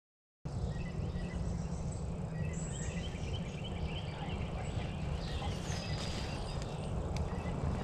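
Woodland songbirds chirping and calling, many short high chirps and a few whistles, over a steady low rumble. The sound cuts in about half a second in after dead silence.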